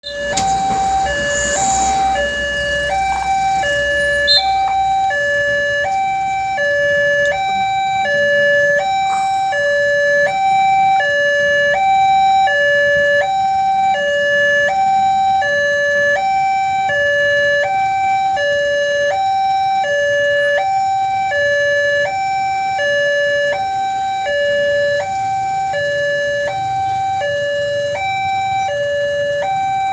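Railway level crossing warning alarm sounding: an electronic two-tone signal that alternates evenly between a higher and a lower note, about one high-low pair every second and a half, warning that a train is approaching and the barrier is closing.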